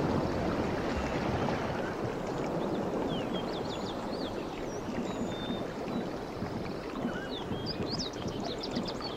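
Outdoor ambience: a steady rushing hiss, with small birds chirping in short, quick calls from about two and a half seconds in.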